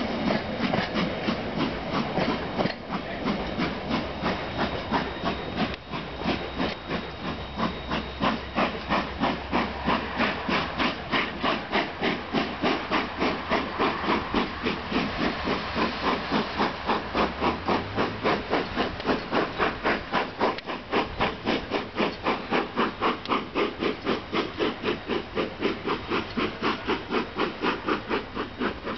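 Steam locomotive A428 (an NZR A-class) chuffing in an even rhythm of exhaust beats, about three a second, with a steady hiss of steam, as it pulls its train away from the station.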